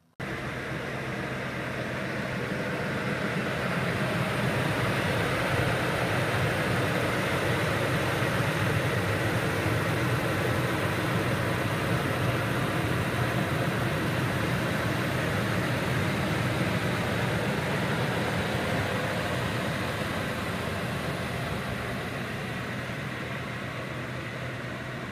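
1997 Ford F-150 pickup's engine idling steadily under an open hood, growing louder over the first few seconds and easing slightly near the end.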